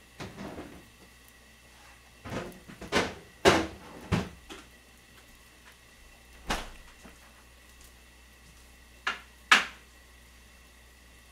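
A string of sharp kitchen knocks and clacks, like cupboard doors and kitchenware being handled. There are about eight at uneven intervals, with a cluster between two and four seconds in and the loudest one near the end.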